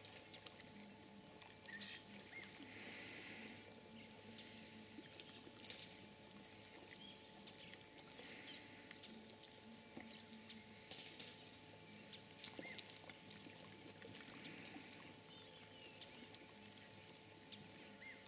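African elephant feeding in a tree: branches and twigs crack and rustle, with one sharp crack about six seconds in and a cluster of cracks around eleven seconds. A steady high insect hiss and faint bird chirps run underneath.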